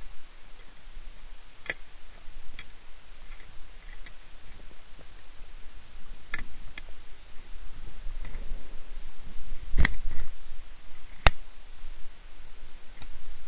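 Underwater sound picked up through a dive camera's housing: a steady low rumble with about half a dozen sharp, scattered clicks, the two loudest coming close together later on.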